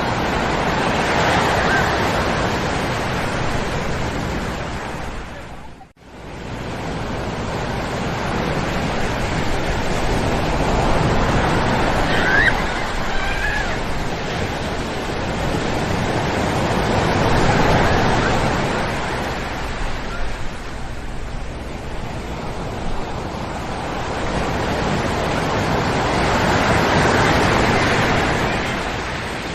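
Ocean surf washing onto a sandy shore, each wave swelling and fading away, roughly every eight to ten seconds. The sound cuts out for a moment about six seconds in.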